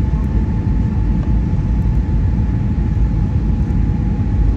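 Airbus A320 airliner cabin noise: a steady low rumble of engines and airflow, with one steady whine running through it.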